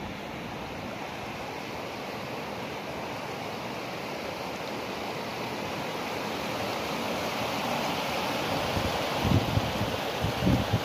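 A small, silty mountain stream rushing and splashing down over rocks in a steady wash of water noise that slowly grows louder. Wind gusts buffet the microphone a few times near the end.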